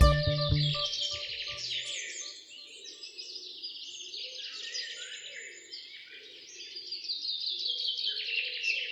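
Many small birds chirping and twittering in a dense, continuous chorus, a recorded nature sound effect. The tail of a music track dies away in the first second or two.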